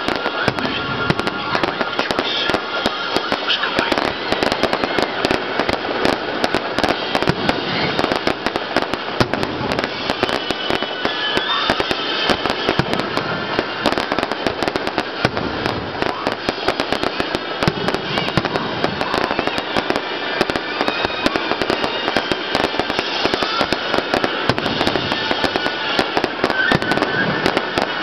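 Fireworks display: aerial shells bursting amid a dense, unbroken barrage of pops and crackling from crackle stars.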